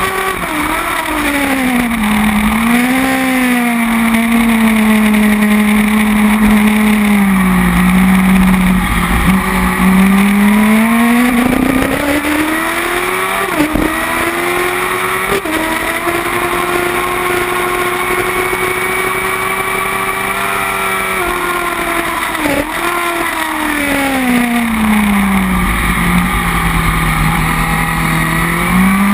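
Kawasaki ZX-10R inline-four race engine on a track lap, heard from the bike with wind rush. The engine note falls over the first several seconds, climbs through quick gear changes about halfway, holds steady for a while, then drops again before starting to rise near the end.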